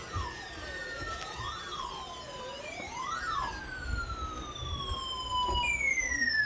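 Siren tones: a wail sweeping up and down about every second and a half, overlaid with long falling glides that overlap one another. The sound grows louder towards the end.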